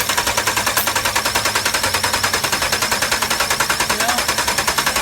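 Starter cranking the 5.7 Hemi V8 of a 2009 Dodge with a rapid, even beat, without the engine catching.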